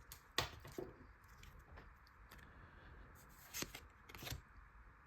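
Pokémon trading cards and their pack being handled: a few soft clicks and crinkles as cards are slid and turned.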